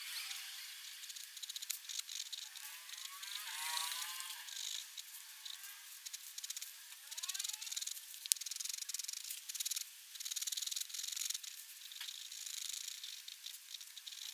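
Black pigment pen nib scratching across paper in quick, irregular strokes, with a couple of short squeaky glides from the nib.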